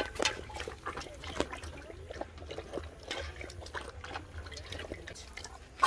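Water splashing and trickling in small, irregular bursts.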